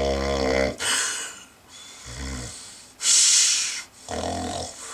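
A man snoring: a low buzzing snore on the in-breath followed by a long hissing breath out, repeating about every two seconds.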